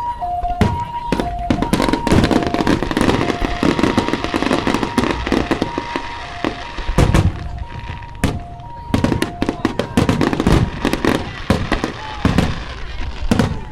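Fireworks and firecrackers going off in rapid, irregular bangs. Under them a two-tone hi-lo siren alternates steadily, fading after about ten seconds.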